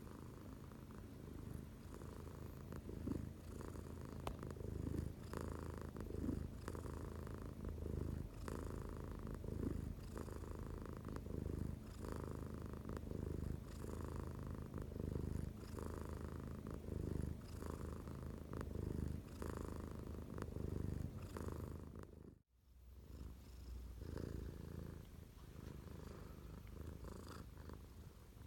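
Domestic cat purring close up, a deep purr that sounds like snoring, swelling and fading about once a second. It drops out for a split second about three quarters of the way through.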